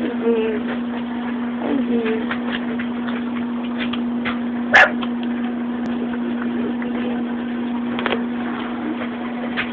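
Puppy giving a couple of short whimpers while being held and handled, over a steady hum, with handling clicks and one sharp knock about five seconds in.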